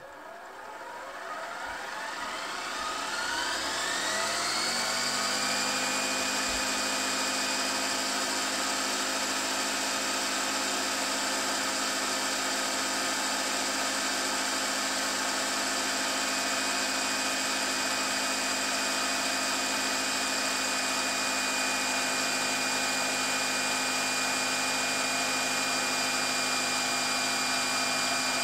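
Philips VR550 VHS deck, top cover off, fast-winding a TDK E300 cassette: a whine rises in pitch over the first four or five seconds as the reels spin up to speed, then holds as a steady high-pitched whine over a mechanical whir.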